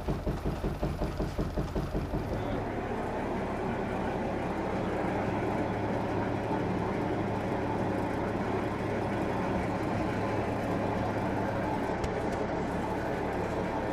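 Gold-mill shaker table knocking in a steady rhythm, about four bumps a second, as it works the ore down the table. About two and a half seconds in, this gives way to a steady mechanical rumble with a low hum: the mill's machinery running.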